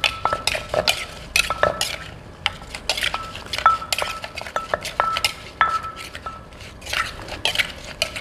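Wooden pestle pounding in a Thai clay mortar while a metal spoon scrapes and turns the salad against the mortar wall. The knocks and clinks are irregular, several a second, and many carry a short metallic ring.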